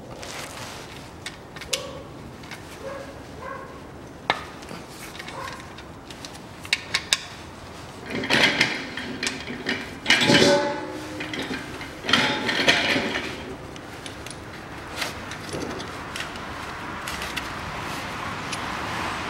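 Oil drain plug on an Opel Astra 1.4 Turbo's oil pan being turned out by hand, with light metallic clicks. Then come several loud splashing bursts as it comes free and the used engine oil gushes out, settling into a steady pour into the drain basin.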